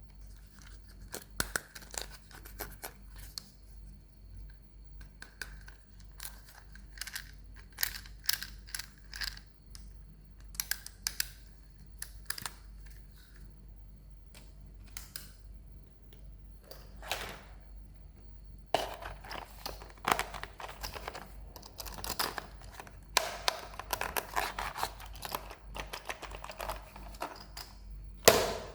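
Toy packaging being handled and opened: scattered sharp taps and clicks, then from about two-thirds of the way in, continuous crinkling and tearing of plastic wrapping that ends in a loud rip.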